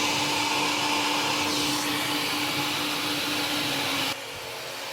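Power saw running steadily as it cuts into a cliff cypress log, a continuous whirring with a steady hum; it drops suddenly to a quieter level about four seconds in.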